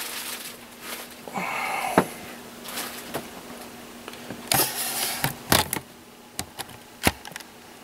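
Handling noise: scattered sharp clicks and knocks with two short rustles, as the camera is moved about the battery box, over a faint steady hum.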